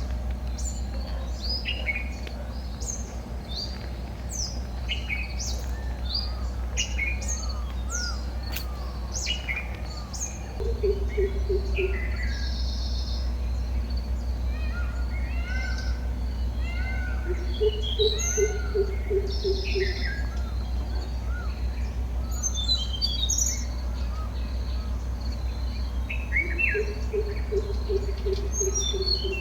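Several birds calling and singing outdoors: quick chirps and whistled notes throughout, and a lower, fast-repeated note in runs of two or three seconds, heard three times. A steady low rumble lies underneath.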